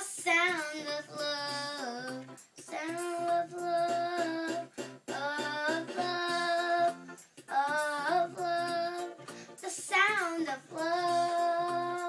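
A young girl singing while accompanying herself on an electronic keyboard: about five sung phrases with short breaths between them, some sliding in pitch, over steady low keyboard notes.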